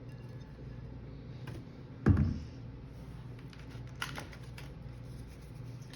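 Objects being handled on a table: one dull thump about two seconds in, then scattered light clicks and taps.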